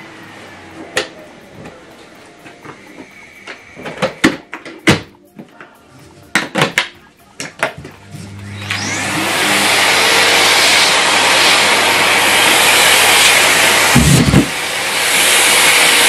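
Clicks and knocks from handling a Miele C3 canister vacuum cleaner. A little past halfway its motor starts and rises over about a second to a loud, steady run with a hissing rush of air. A brief dip and a low thud come near the end.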